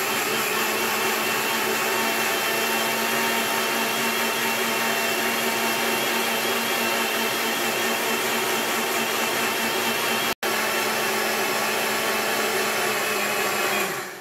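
Electric mixer grinder running steadily, grinding soaked raw rice in its own soaking water into a smooth batter. It cuts out for an instant about ten seconds in, then is switched off near the end and winds down.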